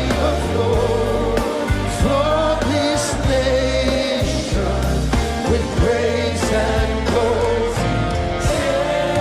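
Live worship music: voices singing over a band with a steady bass line and regular drum hits.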